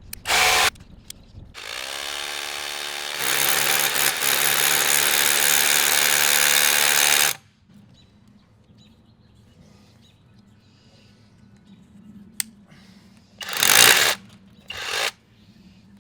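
Hammer drill with a 5/32-inch concrete bit boring into rock: the motor spins up with a rising whine, then the hammering action bites in for about four seconds and stops suddenly. Two short bursts of drilling come near the end.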